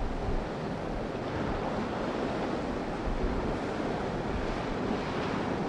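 Steady rush of wind and ocean waves at sea, with wind buffeting the microphone.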